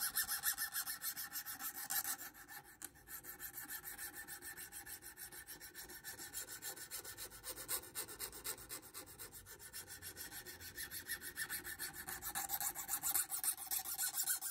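A small rat-tail file rasping in quick, repeated strokes along the square steel spine of a Spyderco knife blade, knocking off the sharp edge before the spine is sanded round. The strokes ease off for a moment about two seconds in and grow heavier near the end.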